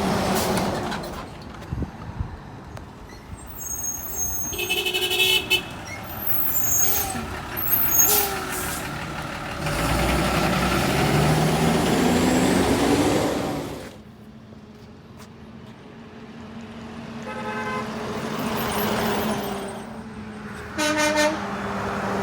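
Trucks passing on a road, with short horn toots: one about five seconds in, a faint one later and a short blast near the end. In the middle a truck goes past loudly.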